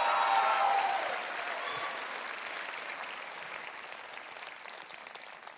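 Large concert audience applauding, the applause dying away gradually over several seconds.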